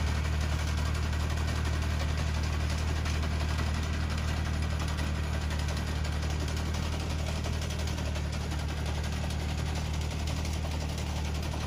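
Farm tractor with a mounted JCT BS400 boom sprayer, its engine running steadily under working load as it drives and sprays: a constant low drone.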